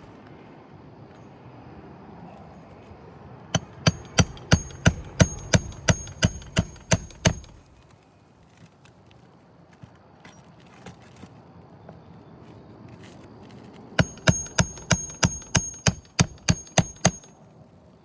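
A 16-ounce hammer driving roofing nails through an asphalt shingle into the roof deck: two runs of rapid, evenly spaced blows, about three a second and a dozen each, with a high metallic ring over the strikes.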